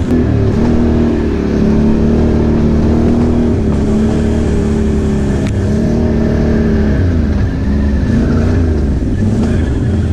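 Can-Am Outlander XMR ATV's V-twin engine running as it is ridden, its pitch rising and falling with the throttle.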